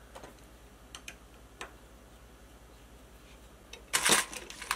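A few light clicks of small parts being handled, then, about four seconds in, a short loud rattle of loose steel screws as a hand rummages in a plastic parts bin.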